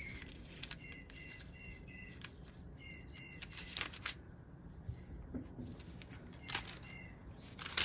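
Pages of a printed book being turned, with a few short paper rustles and taps. Small birds chirp in short repeated runs in the background.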